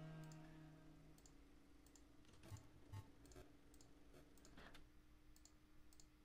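Faint computer mouse clicks, scattered and irregular, over near-silent room tone with a low steady hum. The tail of background music fades out in the first second.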